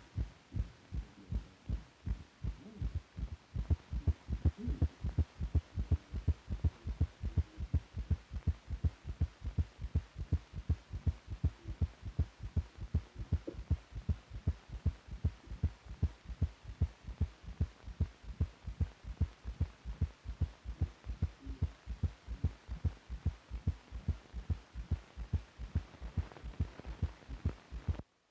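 Recorded heart sounds: a steady, regular rhythm of low thumps, about three a second, over a faint hum, cutting off suddenly near the end.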